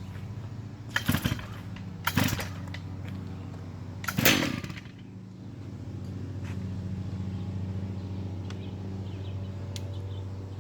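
Starter cord of a Stihl MS880 121cc two-stroke chainsaw being yanked on choke: three hard pulls, the second about a second after the first and the third about two seconds later. A steady low hum runs underneath.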